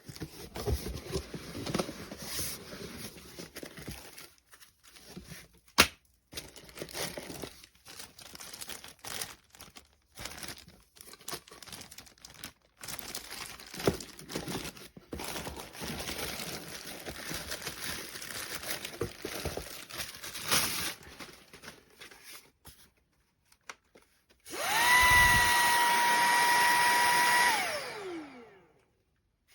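Clicks, knocks and rustles of handling, then about 25 s in the motor of a LEVOIT cordless stick vacuum switches on and runs with a steady high whine for about three seconds before winding down with a falling whine.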